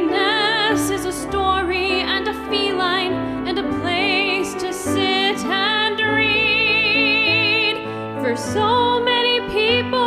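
Musical-theatre song: a woman singing a melody with vibrato over instrumental accompaniment.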